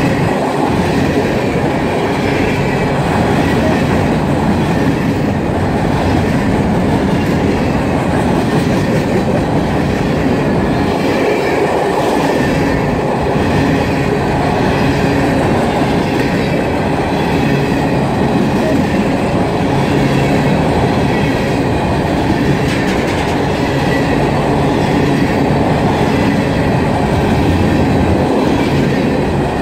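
Loaded freight train of covered hopper cars rolling past close by: a steady rumble of steel wheels on rail, with a repeating clickety-clack of wheels over the rail joints.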